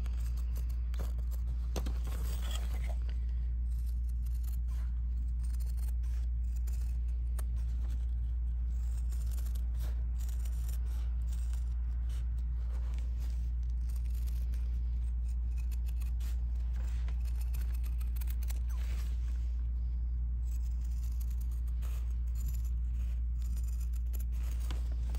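Sewing scissors snipping again and again through layered, embroidered cotton fabric and its padded backing, trimming along the stitched trim line, over a steady low hum.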